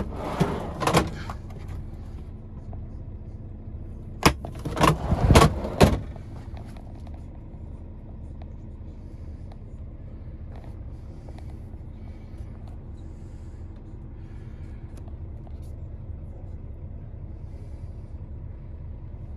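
Scania S500's 500 bhp Euro 6 diesel, a 13-litre straight-six, idling steadily, heard from inside the cab. Loud thumps and rustling come in two short clusters in the first six seconds.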